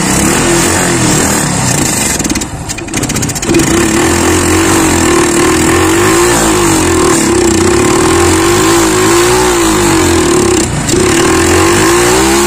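Motorcycle engine running while carburettor cleaner spray is fed into the carburettor, its revs rising and falling as the throttle is worked, with a brief stumble and dip about two to three seconds in. The spray is being sucked through the running engine to flush blocked jets and passages.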